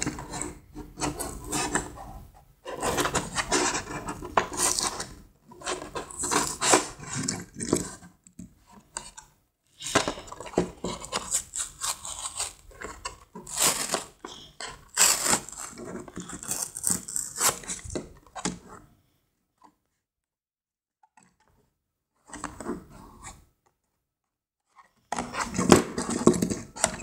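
A plastic blister pack and its cardboard backing handled and pulled apart by hand, crackling and scraping in irregular bursts, with a few seconds of quiet about three-quarters of the way through.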